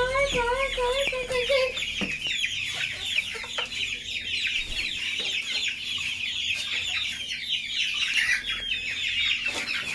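A flock of young gamefowl chicks peeping: many short, falling peeps overlapping without pause. In the first couple of seconds a lower warbling note wavers up and down over them.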